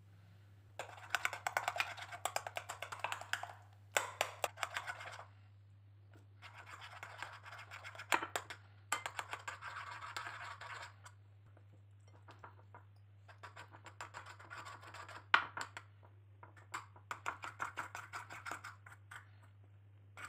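Metal spoon stirring and scraping against a bowl in quick strokes, mixing flour into butter and yogurt for a dough, in several bursts separated by short pauses, with a few sharp clinks of the spoon on the bowl. A faint low steady hum runs underneath.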